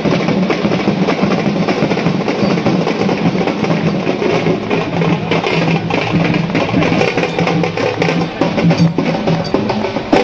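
A band of dhol and nagada drums playing a dense, continuous beat of quick strokes.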